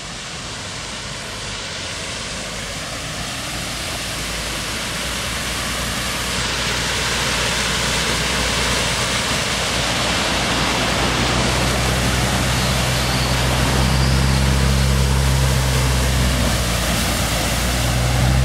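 Vehicles ploughing through deep floodwater, a rushing, churning noise of water and spray that grows louder. In the second half the low, steady engine hum of a fire engine wading past joins in, loudest near the end.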